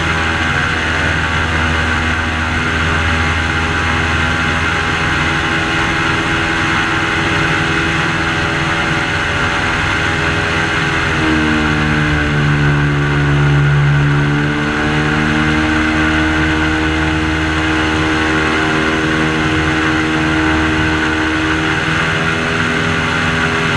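Airboat engine and propeller running steadily at travelling speed, loud and close. About halfway through the engine pitch dips and then climbs back up over a few seconds before holding steady again.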